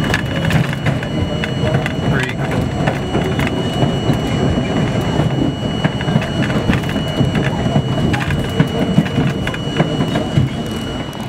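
Subway train running along an elevated steel structure, heard from inside the front car: a continuous low rumble of wheels on rail with frequent clicks and rattles, and a thin steady high tone running through it.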